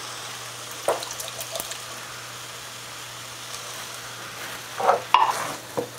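Electric skillet simmering a cheese-and-water sauce with a steady hiss, as canned green chilies are scraped out of the can and spooned in, giving a few soft plops and scrapes, with a louder cluster of scraping near the end.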